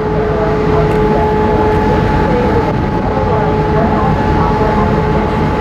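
Steady low rumble of the MV Salish Eagle ferry's engines and machinery under way. A constant two-note hum runs over the rumble.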